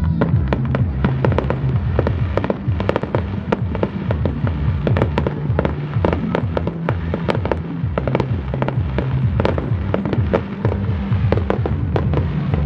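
Starmine fireworks barrage: shell bursts going off in quick succession, several sharp cracks and bangs a second, with music playing underneath.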